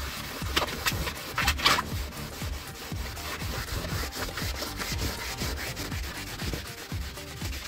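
Melamine foam sponge (magic eraser) scrubbing a wet, soapy leather car seat in quick back-and-forth strokes, a steady run of rubbing with a couple of harder strokes about a second and a half in.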